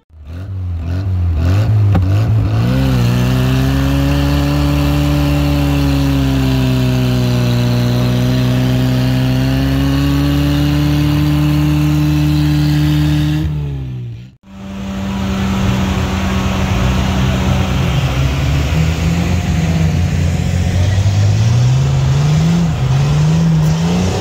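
Off-road 4x4 engines running hard in deep mud. The first is held at steady high revs for about ten seconds and then breaks off sharply. The second is revved up and down over and over, each rise lasting a second or two.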